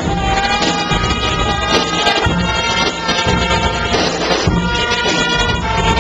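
Marching band playing: brass instruments sounding held notes over a steady beat of percussion strikes.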